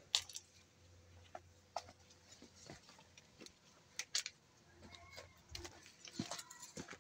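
Faint, scattered crackling and rustling of fig leaves and twigs brushing past, with footsteps on dry ground.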